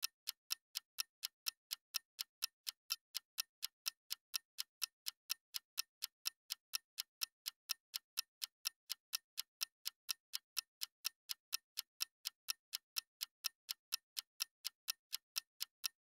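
Steady, evenly spaced ticking, about four sharp, high ticks a second, with nothing else underneath.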